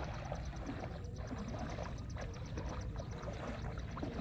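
Footsteps squelching and splashing through shallow water and wet grass over a steady low rumble of wind on the microphone. A rapid high ticking, about eight a second, runs through most of it and stops near the end.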